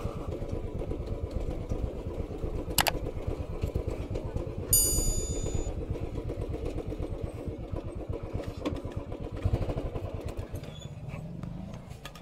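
Small motorcycle engine running steadily at low speed, dying away near the end. There is a sharp click about three seconds in and a brief high-pitched beep about five seconds in.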